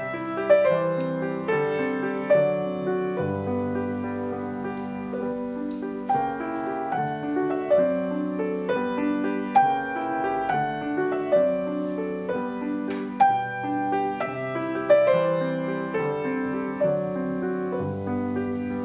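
Grand piano played solo: a lyrical classical piece with sung-out melody notes over a steady accompaniment, accented notes falling about once a second.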